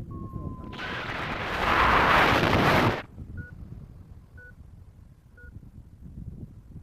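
Electronic beeping of a paraglider's flight variometer: a short tone falling slightly in pitch, then three short beeps about a second apart. A loud rush of wind noise on the microphone comes between them, the loudest sound.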